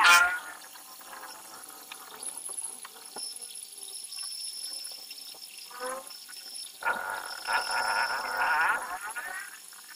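Small metal lathe turning a steel bar, the cutting tool squealing and chattering against the metal in wavering, whistle-like bouts: a loud one right at the start, a short one near the middle, and a longer one from about seven to nine seconds in.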